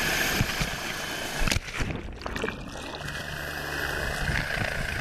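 Army helicopter's turbine whine and rotor-wash noise over the sea. About a second and a half in come a few sharp knocks and a crash as the rescue diver hits the water. After that, rushing water with a low, steady drone from the helicopter.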